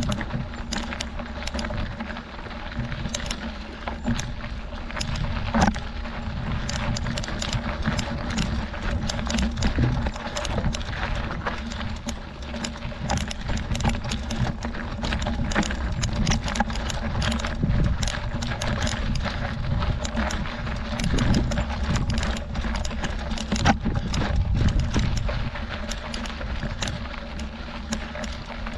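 Mountain bike riding over a rocky gravel road: tyres crunching on loose stones with a steady low rumble, and frequent small rattles and clicks from the bike jolting over the rocks.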